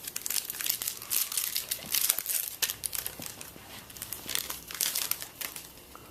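Trading-card pack wrapper crinkling in irregular crackly bursts as it is torn open and handled, dying down near the end.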